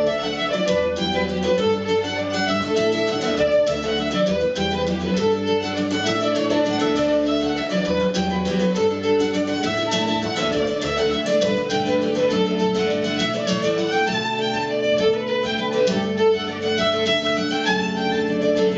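Two fiddles playing a Scottish fiddle tune together, with acoustic guitar accompaniment.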